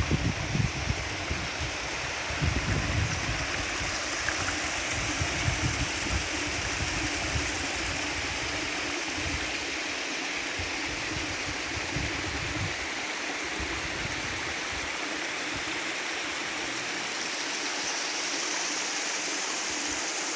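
Steady rush of water from a mountain waterfall and its stream, with low, uneven buffeting over the first half that fades out.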